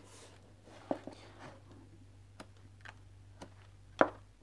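Sheets of card being leafed through by hand: soft paper rustling with a few light clicks and taps, the sharpest just before the end, over a faint steady low hum.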